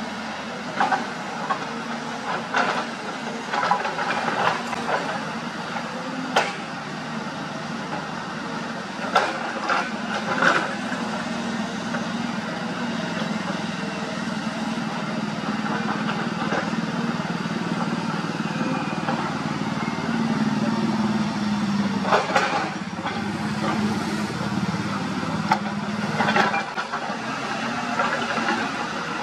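Hyundai 220 hydraulic excavator's diesel engine running steadily while it digs, with sharp knocks and scrapes of the bucket against rock and earth several times. The engine works harder for several seconds about two-thirds of the way through, then eases off.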